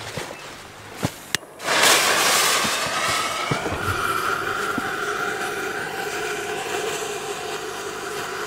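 Two sharp clicks, then a firework device in a ground-set tube catches with a sudden loud rush and burns on as a steady hissing jet of sparks and smoke.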